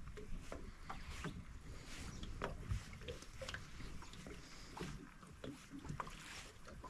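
Small waves lapping and slapping against a small boat's hull, with scattered faint taps and clicks over a low, uneven rumble.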